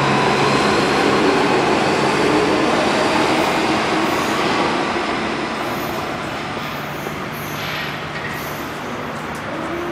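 Alstom AS-2002 metro train pulling out of the station and running away down the line. Its running noise is loud at first, then fades over the next few seconds as it recedes.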